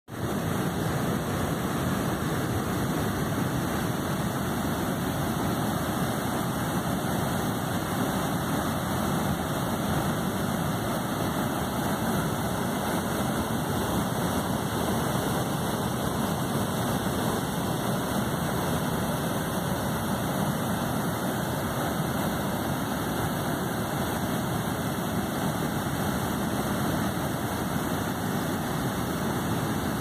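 Muddy creek in flood pouring over a low stone dam and churning through rapids: a steady, unbroken rush of water.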